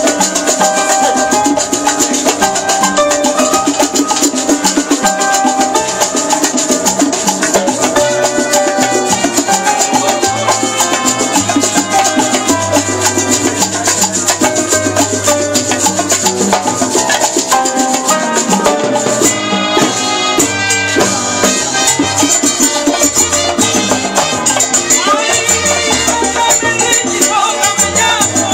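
Salsa music from a live band, with a steady high scraping rhythm from a güiro alongside drums and a bass line.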